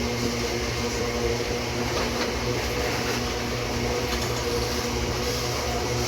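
Loaded ore freight train running past, a steady mechanical drone with a constant low hum.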